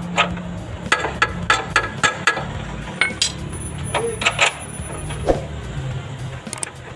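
Metal hand tools clinking and tapping on metal: a run of irregular sharp clicks over a low steady hum.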